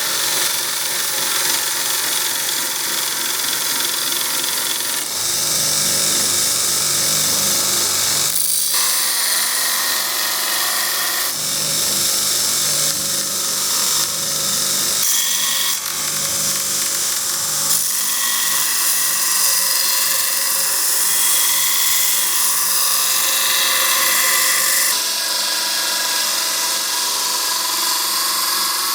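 A power tool running on knife steel with a steady high whine and hiss, its pitch and tone shifting abruptly every few seconds.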